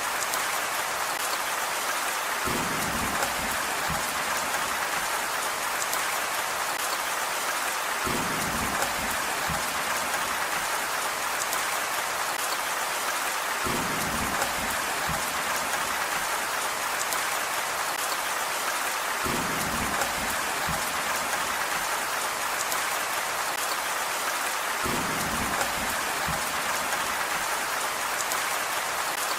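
Steady rain falling, a continuous even hiss of many drops, with a brief low rumble coming back about every five and a half seconds.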